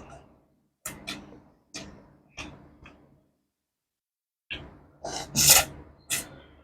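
Close-miked eating sounds: sharp mouth clicks and smacks of chewing, a few spaced strokes, then a pause and a louder, denser run of smacks near the end.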